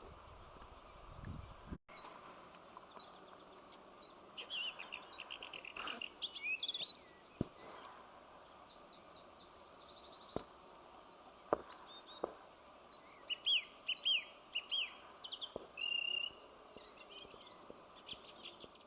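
Small songbirds singing in open countryside: repeated quick chirping and trilling phrases over a steady faint background hiss, with a few isolated faint clicks. For the first two seconds there is only a low rumble of wind on the microphone.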